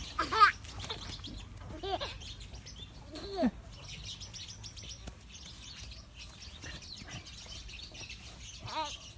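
Puppy whining: four short, high whimpers, each rising and falling in pitch, the first the loudest, over faint rustling and scrabbling.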